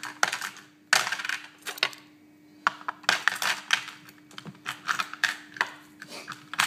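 Small hard polymer-clay miniatures clicking and clattering against each other and a hard surface as they are handled, picked up and set down, in quick irregular bursts over a faint steady hum.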